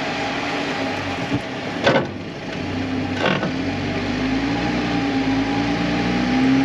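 Off-road vehicle's engine running at low speed and rising slightly in pitch as the truck pulls forward onto a plastic traction board, with two sharp creaks about two and three seconds in, the first the loudest.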